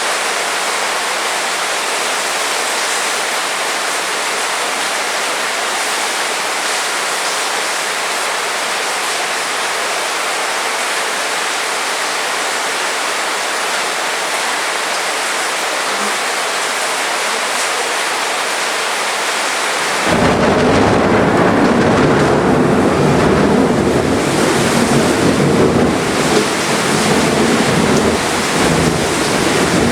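Heavy rain falling in a steady hiss. About two thirds of the way through, a louder, deeper rumble of thunder sets in suddenly and keeps going to the end, fluctuating under the rain.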